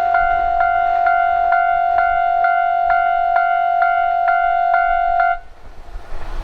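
Japanese railway level-crossing warning bell ringing its 'kan-kan' clang about twice a second over a steady tone, then cutting off about five seconds in, the sign that the train has cleared the crossing. Rough wind or rumble noise follows.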